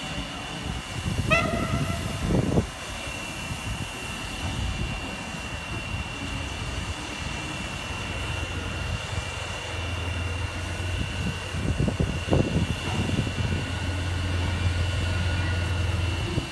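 Diesel shunting locomotive's engine running as it approaches, a low steady drone that builds from about halfway through. A brief whistle toot about a second in.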